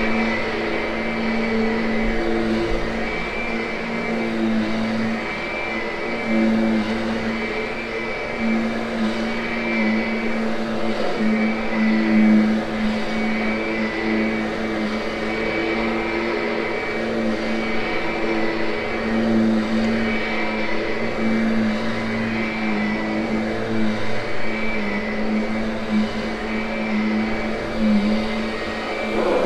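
Kirby upright vacuum running on carpet, a steady motor hum and whine that swell and fade slightly every few seconds. It is post-vacuuming and grooming a freshly cleaned carpet.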